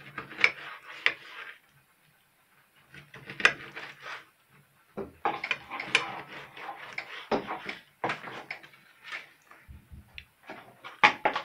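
Kitchen knife slicing raw liver on a plastic cutting board, with sharp taps of the blade against the board. The cutting comes in several spells separated by short pauses.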